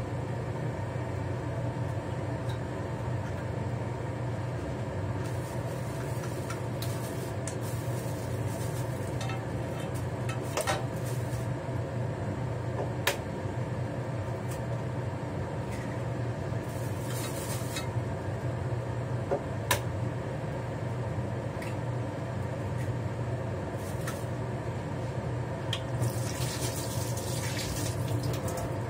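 Steady fan hum with scattered single clinks and knocks of utensils on cookware. Near the end, tap water runs into a steel sink for about two seconds.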